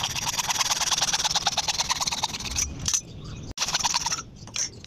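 PVC pipe being cut, a fast rasping grate that runs for about two and a half seconds, stops, and starts again briefly about three and a half seconds in.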